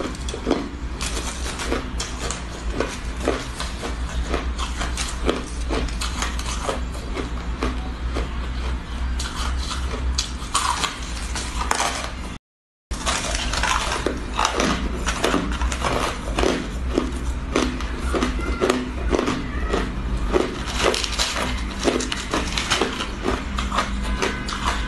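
Close-up crunching of frosty, crumbly ice being bitten and chewed: a dense, irregular run of crisp crackles and crunches, several a second, over a low steady hum. It cuts out for a moment about halfway.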